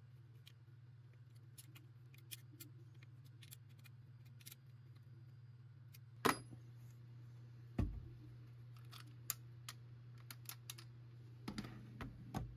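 Light clicks and clacks of metal air-gun parts being handled. A sharper metallic click with a brief ring comes about six seconds in, then a dull thud just before eight seconds, and a run of small clicks near the end, all over a steady low hum.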